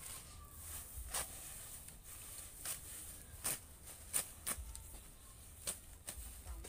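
Scattered short rustles and crackles, about half a dozen, from gloved hands sifting loose soil in a plastic-lined box and handling a woven plastic sack, over a steady high hiss.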